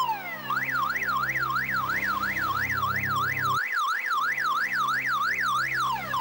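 Electronic siren from an escort car's roof light bar, sounding a fast up-and-down yelp of about three sweeps a second, switching to quick falling sweeps near the end. Low steady tones underneath.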